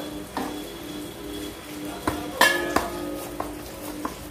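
Hands kneading oiled wheat-flour dough in a stainless steel plate, with a few sharp knocks and clinks of the plate, the loudest a little past halfway. Quiet background music plays.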